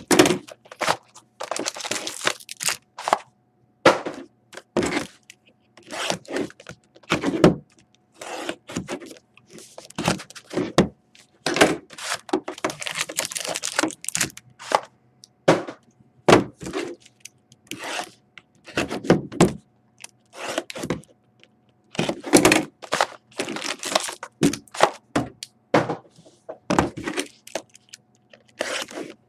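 Plastic shrink wrap crinkling and tearing as a sealed cardboard hobby box of trading cards is unwrapped, with the boxes knocking and sliding on a tabletop. The sounds are irregular, with short knocks mixed with longer crackly rustles.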